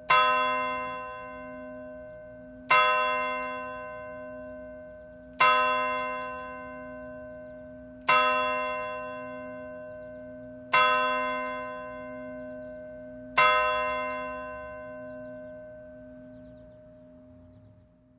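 A church bell tolling, six strokes of the same pitch about every two and a half seconds, each ringing on and fading, with a low hum pulsing beneath. After the last stroke it rings out and dies away near the end.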